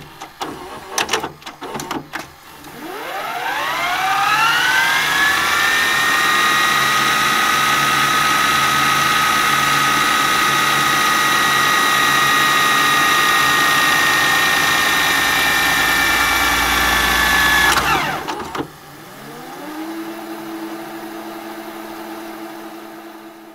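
A motor-driven machine starting after a few clicks, its whine rising over a couple of seconds to a steady high pitch and running evenly, then dropping sharply about eighteen seconds in and settling to a lower, quieter steady hum.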